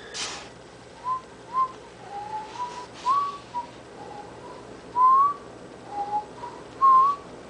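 A run of about a dozen short, thin whistling notes at irregular intervals, several sliding upward in pitch, with the loudest ones about five and seven seconds in.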